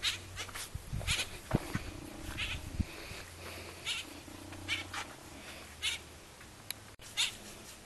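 Repeated short, high-pitched animal calls, roughly one a second, over a low steady hum.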